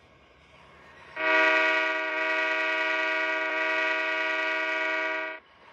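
Train horn sounding one long steady blast of about four seconds, starting about a second in and cutting off sharply.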